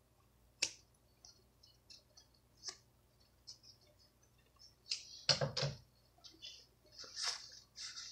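Hands handling and turning a piece of sewn fabric close to the microphone: scattered soft clicks and rustles, with a louder cluster about five seconds in.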